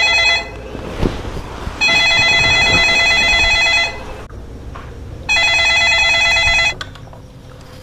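Landline telephone ringing: an electronic ring of several steady tones. The rings last about two seconds with pauses of about a second and a half, and the last one is shorter.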